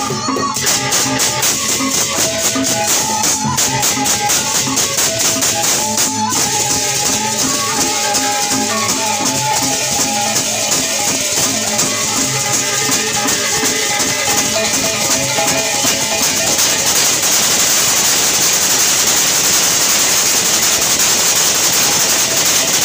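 Gendang beleq gamelan ensemble playing: a melody on kettle gongs over drums, under a constant dense clash of hand cymbals. About two-thirds of the way in, the gong melody falls away and the cymbals' shimmer takes over, a little louder.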